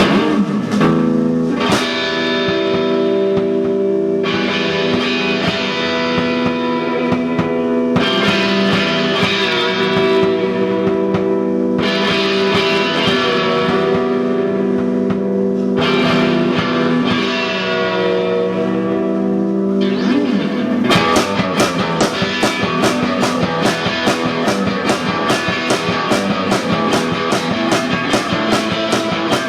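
Live rock music on electric guitar: held, ringing chords that change about every two seconds, then about 21 seconds in the playing breaks into a fast, even beat.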